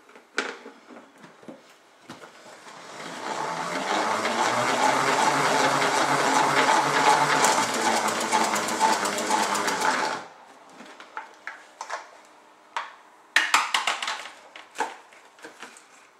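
Salad spinner whirring as its basket of wet romaine lettuce spins, building up over a second or so, holding steady, then cutting off suddenly. Afterwards come a few clicks and knocks of the plastic lid being handled.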